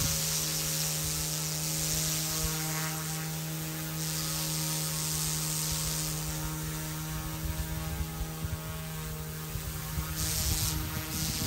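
FlyWing FW200 micro RC helicopter in flight: the steady whine of its direct-drive electric motor and spinning rotors, holding one even pitch throughout, with a low uneven rumble underneath.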